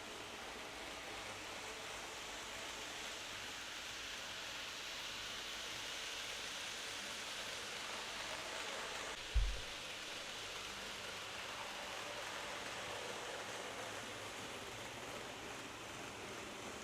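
Steady background hiss with one short, low thump about halfway through.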